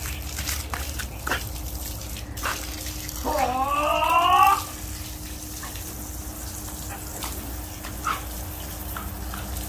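A Belgian Malinois gives one long, rising whine-howl about three seconds in, over the steady spray of a garden hose.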